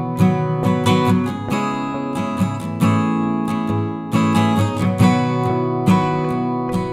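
Background music of strummed acoustic guitar, with a regular strumming rhythm.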